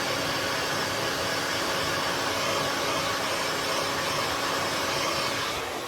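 Hot air rework gun blowing steadily with a low, even hum, heating a phone's back glass to soften the adhesive underneath.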